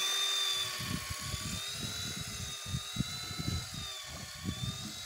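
Daiwa Tanacom 1000 electric fishing reel's motor whining steadily as it winds line in, its high pitch wavering slightly, over irregular low thumps.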